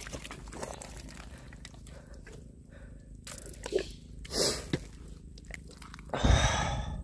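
Wet mud in a mantis shrimp burrow softly crackling and squelching, with scattered small pops and clicks. A louder rushing noise comes near the end.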